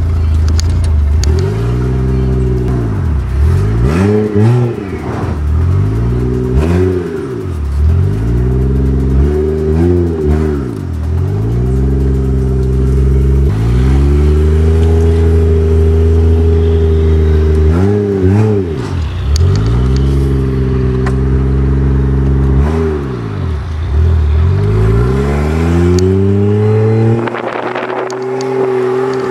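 Toyota 1JZ-GTE twin-turbo straight-six in a BMW E46, heard from inside the cabin while driving, its revs rising and falling again and again. The engine holds steadier for a few seconds about halfway through, and the deep rumble drops away near the end.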